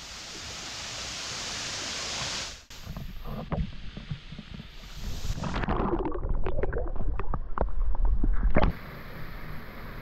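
Steady rush of a waterfall that cuts off abruptly, followed by muffled underwater water noise with a heavy rumble and sharp bubbling clicks, heard from a camera submerged in the stream. About a second before the end, the open-air rush and splash of a waterfall returns.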